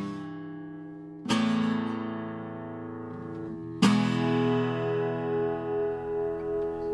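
Outro music of acoustic guitar: strummed chords that ring out and fade, with a new chord struck just over a second in and another about four seconds in.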